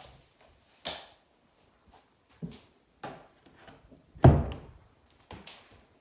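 A handful of irregular knocks and thumps, the loudest a heavy thump about four seconds in.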